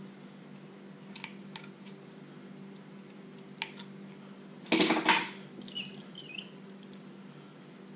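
Aviation tin snips clicking shut a few times as they trim the loose ends of a fishing line binding, then a louder clatter of handling them about five seconds in, followed by a few short squeaks, over a steady low hum.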